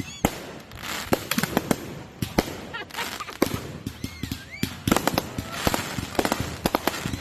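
Consumer fireworks going off: an irregular string of sharp bangs and crackles, with a dense rapid cluster about five seconds in.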